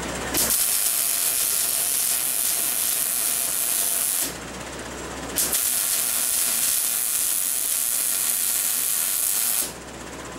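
Wire-feed welder arc crackling and hissing steadily while laying a bead on steel angle, in two runs of about four seconds each with a short pause between.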